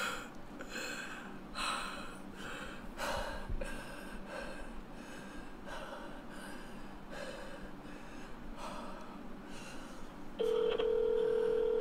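Faint, anxious breathing, a soft breath about every second. Near the end a phone on speaker starts a steady ringback tone: the call is ringing and not yet answered.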